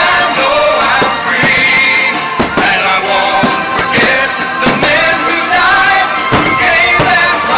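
Loud pop music with singing, with the irregular bangs of fireworks bursting over it.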